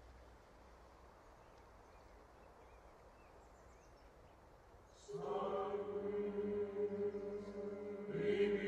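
Faint outdoor ambience with a few bird chirps. About five seconds in, a choir enters chanting on low, sustained chords (the choral film score), swelling louder near the end.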